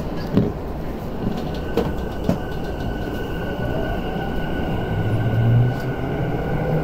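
Tokyu 5050 series electric train heard from inside the car as it moves along an underground station platform: steady running noise with a high, held squeal and a few sharp knocks. Near the end a motor whine rises in pitch as the train speeds up.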